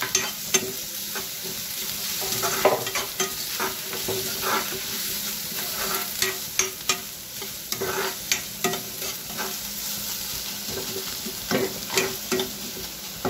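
Chopped onions and ginger-garlic paste sizzling in oil in a nonstick frying pan. A spatula stirs them, scraping and tapping against the pan at irregular moments over the steady sizzle.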